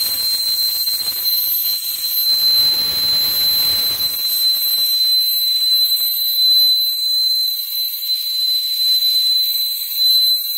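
Steam escaping from a Wilesco D32 model steam engine's boiler as one steady, high whistle. A hiss of rushing steam under it for the first few seconds fades out about halfway.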